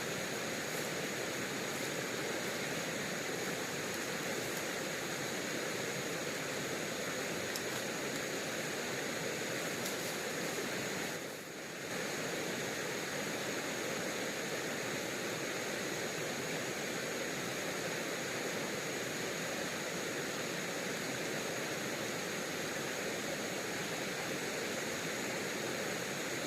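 Steady rushing hiss of a flowing river, with a thin high steady tone above it. The noise drops briefly about eleven seconds in.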